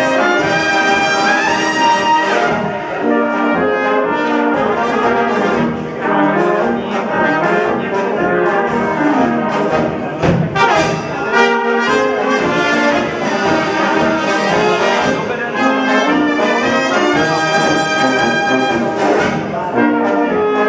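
Czech brass band with tuba, trombones and trumpets playing dance music with a steady beat, with a sharp drum hit about halfway through.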